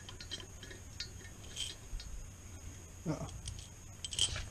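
A few faint, scattered metallic clinks of steel bolts and a wrench being handled while exhaust manifold bolts are threaded in by hand.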